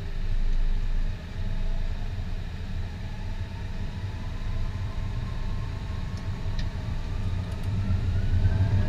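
Airbus A321's jet engines winding up: a whine that slowly rises in pitch over a low rumble, growing louder toward the end.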